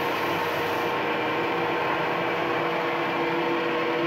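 Ryobi RBDS4601G 380-watt belt and disc sander running at a steady pitch. A wood block pressed on the belt adds a hiss of sanding that stops about a second in; after that the machine runs unloaded.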